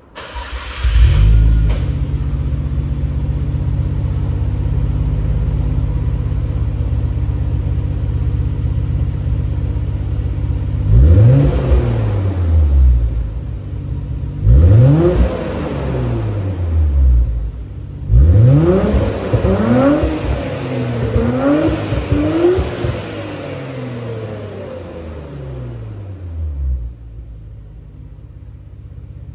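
Nissan Skyline GT-R BNR34's RB26DETT twin-turbo straight-six, fitted with a MINE's front pipe, metal catalyzer and Silence VX PRO titanium muffler, heard through its exhaust while idling steadily and being free-revved. There are single sharp blips about eleven and fifteen seconds in, then a longer rev and a run of quick blips around twenty seconds in, before the engine falls back to idle. Another rev begins at the very end.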